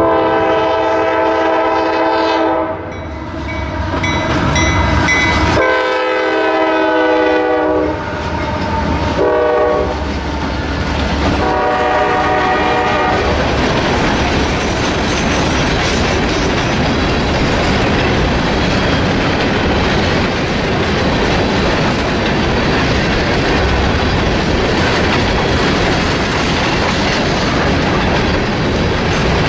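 Locomotive horn blowing the grade-crossing signal, long, long, short, long, as the train approaches the crossing. The horn's chord of several tones sounds at once. Then the train rolls past with steady rumbling and wheels clacking over the rail joints.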